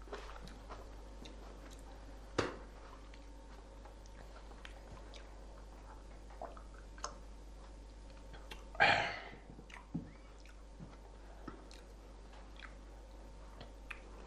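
A man chewing food he picks by hand from a plate, with scattered small clicks and one louder noisy burst about nine seconds in.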